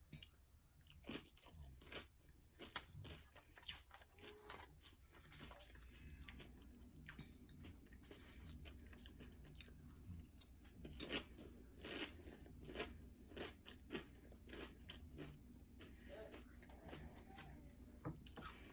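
Doritos nacho chips being bitten and chewed close to the microphone: a string of irregular crisp crunches.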